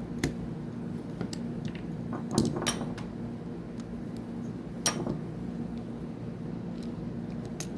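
Small metal parts of a Daiwa fishing reel clicking and clinking sharply as the reel is taken apart and its keeper ring is worked free. The clicks are scattered, a few close together, over a steady low hum.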